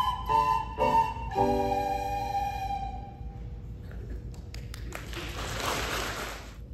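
A class of children playing recorders together: a few short notes, then a long held final note that fades away about three seconds in. Scattered claps follow, swelling into a short burst of applause that cuts off suddenly.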